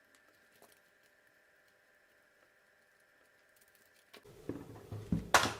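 Near silence for about four seconds, then handling noise and a sharp knock about five seconds in.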